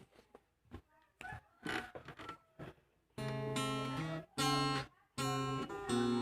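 A few scattered taps and handling knocks, then from about three seconds in an acoustic guitar playing strummed chords, with two short breaks. The playing is instrumental, with no singing.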